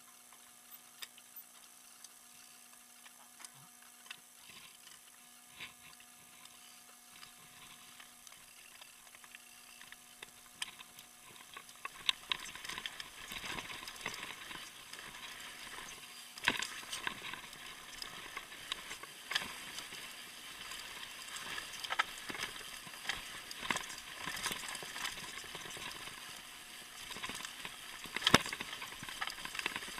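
Mountain bike riding downhill on loose slate gravel, heard through a bike-mounted camera: at first only sparse light clicks and knocks, then from about twelve seconds in a constant crunching rattle of tyres on stones and a shaking bike, with frequent sharp knocks.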